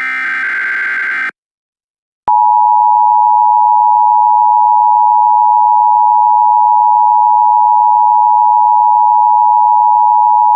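Emergency Alert System broadcast tones: the last burst of the buzzy digital header data ends about a second in. After a short gap, the steady, loud two-tone attention signal starts and holds.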